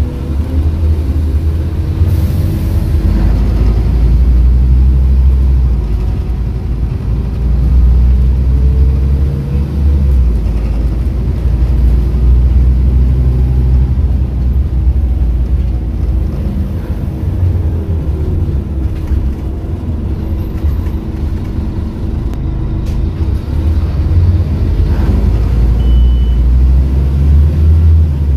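Onboard a Scania N230UD OmniCity double-decker bus with a ZF automatic gearbox: the engine and running gear rumble steadily while the bus is under way. The engine note rises and falls a few times.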